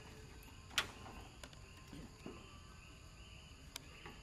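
Faint, repeated short high-pitched chirping calls, with a sharp click about a second in and a smaller one near the end.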